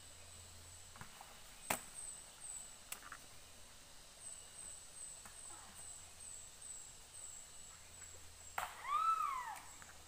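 A single animal call about a second long near the end, rising and then falling in pitch. Under it runs a string of faint, high, quick chirps, and there is a sharp click about two seconds in.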